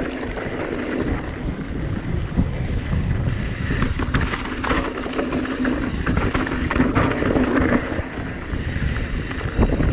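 Mountain bike rolling along a dirt trail: steady tyre noise and wind buffeting the microphone, with scattered knocks and rattles from the bike over bumps.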